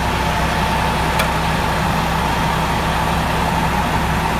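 An engine running steadily at a constant speed: a low hum with a steady whine above it, and one faint click about a second in.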